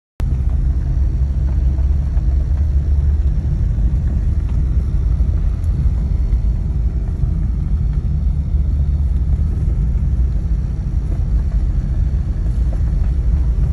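1995 Porsche 911 (993) on the move, its air-cooled flat-six engine and tyres making a steady low rumble.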